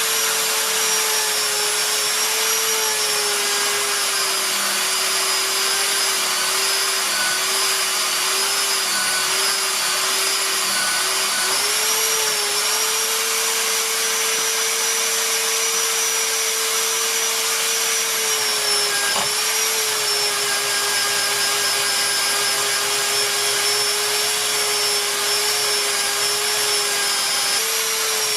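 Electric polisher running steadily under load while a steel knife blade is buffed against the wheel with fine polishing compound. There is a continuous motor hum with a hiss over it, and its pitch wavers and sags now and then as the blade is pressed in.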